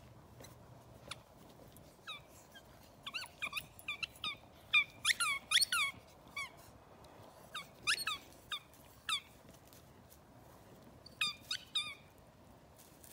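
Orange rubber toy ball squeaking again and again as a dog chews it: short, sharp squeaks in irregular clusters, with a pause before a last few near the end.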